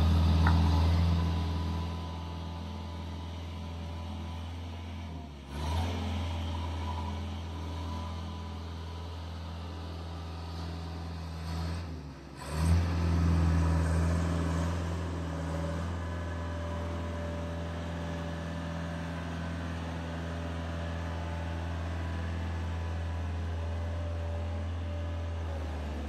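Engine of a JLG 660SJ telescopic boom lift running steadily with a low hum. It is louder for the first couple of seconds and drops out briefly twice, about five and twelve seconds in.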